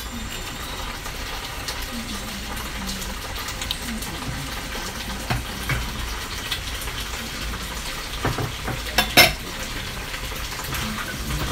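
Food sizzling in a frying pan, with scattered clicks of a utensil against the pan. A few louder knocks come about 8 to 9 seconds in, the loudest just after 9 seconds.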